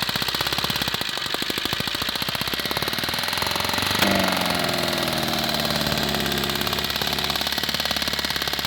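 Maruti Suzuki Ertiga diesel engine running with a heavy, rapid, even knocking, likened to an old Kubota or tractor engine. There is a sharp click about four seconds in. The knock comes with hard starting, smoke and loss of power, which the mechanic puts down to a mechanical fault, likely slipped timing or a bent connecting rod, rather than the injectors.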